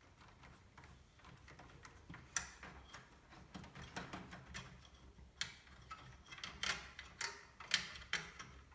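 Irregular light clicks and taps of computer hardware being handled and fitted together, sparse at first and then quicker and sharper.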